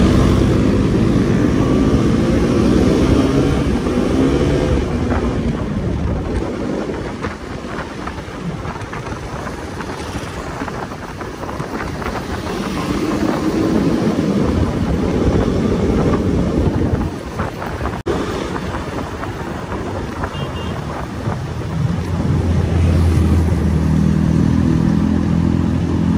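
Motorcycle engine running on the move, its pitch rising and falling as it speeds up and slows. It is loudest at the start and again near the end.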